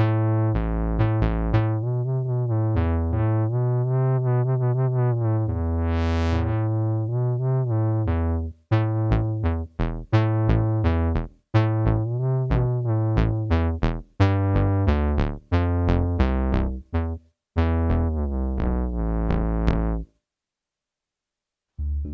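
Expressive E Osmose synthesizer preset, heard dry with no external effects, playing short notes with sharp attacks over a low bass line, in phrases broken by brief gaps. The playing stops about two seconds before the end, and after a short silence a different, hazier sustained sound begins.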